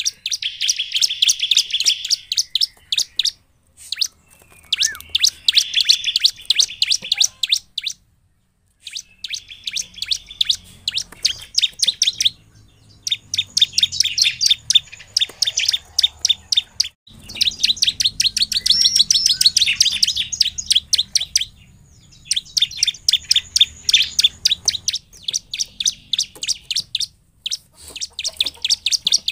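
Bar-winged prinia (ciblek) in full song: long runs of rapid sharp chip notes, about eight a second, in phrases of several seconds with short pauses between.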